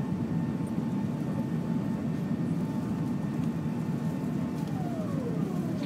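Steady low rumble of an Airbus A380 airliner's cabin noise during the climb after take-off, engine and airflow noise heard from inside the cabin. A faint steady tone sits above it and slides down in pitch near the end.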